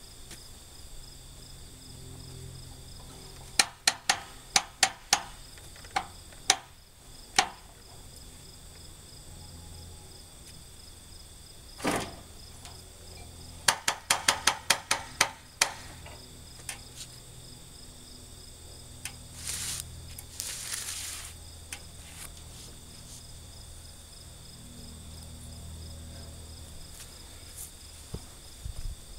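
Sharp metallic knocks on the chainsaw mill's metal frame as it is worked on by hand. About eight strikes come a few seconds in, then a quicker run of about ten a few seconds later, with a single dull thump between them. Insects trill steadily behind it.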